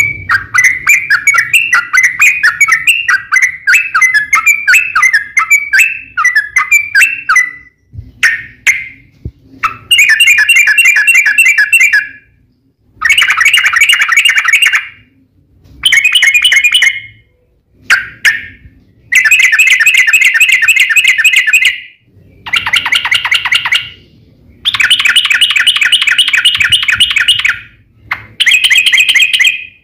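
Yellow-vented bulbul singing an agitated fighting song: a run of quick chattering notes for the first several seconds, then loud, dense rapid phrases of one to three seconds each with short pauses between them.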